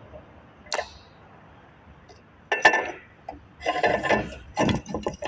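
Steel parts of a hydraulic motor clinking and clattering as it is taken apart by hand. There is a single sharp click about a second in, then three bursts of metal-on-metal knocks and rattles from about two and a half seconds on.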